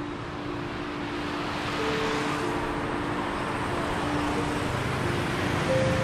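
Road traffic of motorbikes and cars passing on a city bridge: a steady rush of engines and tyres that swells about two seconds in.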